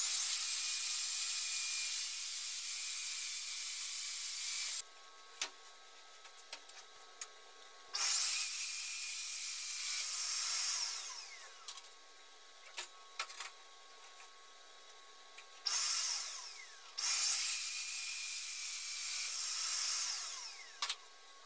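Table saw running in four bursts while cutting OSB sheet. Each burst starts suddenly and is a loud, high-pitched motor whine, and the later ones end in a falling whine as the blade spins down. Between runs there are quieter clicks and knocks of the boards being handled.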